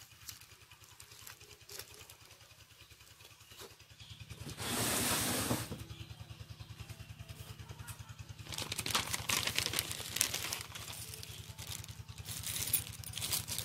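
Plastic bags crinkling and rustling as a sleeved instruction manual and a small zip bag of spare parts are handled, with scattered crackles growing busier in the second half. Underneath, from about a third of the way in, a low steady engine drone runs, and a rush of noise lasting about a second is the loudest moment.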